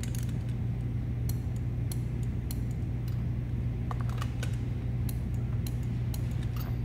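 Light, irregular clicks and taps of a torque wrench, socket and extension being handled on the spark plugs, over a steady low hum.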